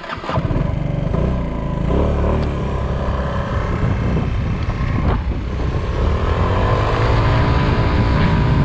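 Scooter engine pulling away and accelerating uphill, its pitch climbing and dropping with the throttle, over a rumble of wind on the microphone.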